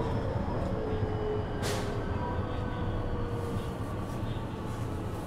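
Running sound inside a JR West 223 series 2000-subseries EMU. The Mitsubishi IGBT inverter and traction motor tones fall slowly in pitch as the train slows, over a steady rumble of wheels on the track. There is a short hiss about a second and a half in.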